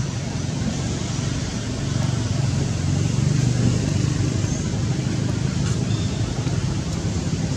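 Steady low rumble and hiss of outdoor background noise, swelling slightly in the middle.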